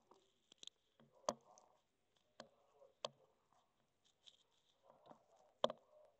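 Nile monitor feeding on ground-turkey mix: scattered sharp clicks and soft knocks, about four of them, the loudest about a second in and another near the end.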